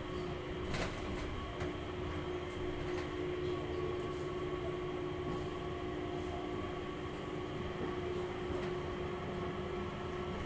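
Changi Airport Skytrain people-mover car running, heard from inside the car: a steady low rumble with a constant hum, and a few faint clicks about a second in.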